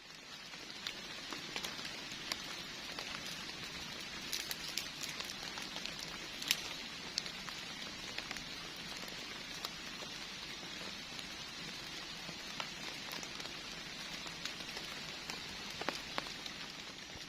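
Heavy rain falling steadily, with scattered sharper drop hits.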